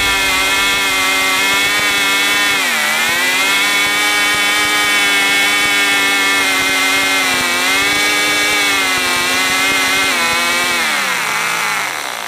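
Two Cox .049 two-stroke glow engines, geared together in tandem to one propeller and fitted with mufflers, running flat out with a high, steady screaming note. The pitch dips briefly twice, then slides down near the end as the engines wind down.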